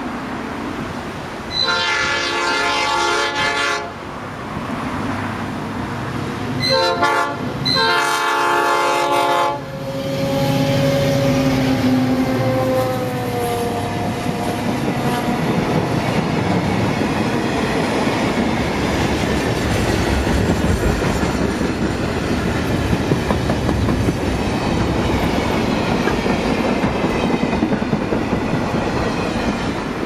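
BL class diesel-electric freight locomotive sounding its multi-note horn: a long blast about two seconds in, then a short and a long blast around seven to nine seconds in. The locomotive then passes, its sound dropping in pitch, followed by a long string of freight wagons rumbling and clattering over the rails.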